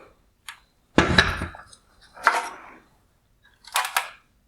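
Headlight parts being handled on a work surface: a small click, then three separate knocks, each with a short scrape.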